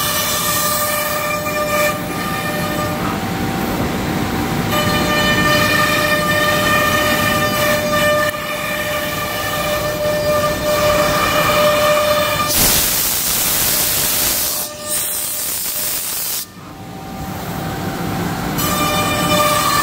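CNC router spindle running and cutting a melamine sheet: a steady whine of several tones over the cutting noise. A little past the middle the whine gives way to a loud rushing noise for a couple of seconds, and it comes back near the end.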